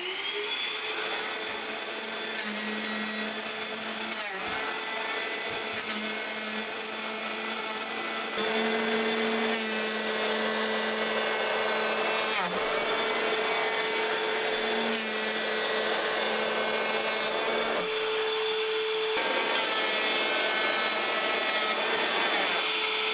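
Bosch GHO 18V cordless electric planer running at full speed with a steady whine, its blades cutting a shallow pass across an oak slab. The motor comes up to speed right at the start, and the sound grows a little louder about eight seconds in.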